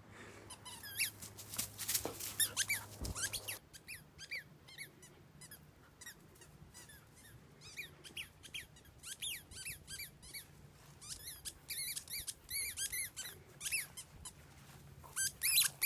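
A squeaky toy ball being chomped by a dog, giving runs of short, high squeaks over and over.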